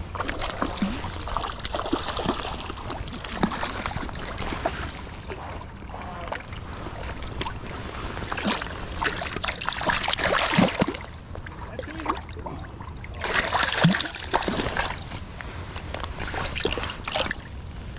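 Water splashing and sloshing in irregular surges, with scattered knocks and clicks; the strongest surges come about ten seconds in and again about thirteen seconds in.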